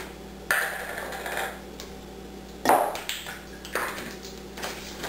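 Plastic measuring spoons and a spice jar clicking and knocking together as onion powder is shaken and measured out: a handful of separate sharp clicks, the loudest about two and a half seconds in.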